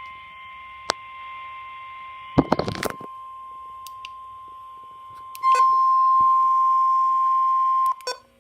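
NOAA Weather Radio warning alarm tone, a steady single-pitch tone of about 1050 Hz sounding from weather radio receivers. About five and a half seconds in it becomes much louder, and it cuts off suddenly near the end. A click comes about a second in, and a short burst of knocks around two and a half seconds.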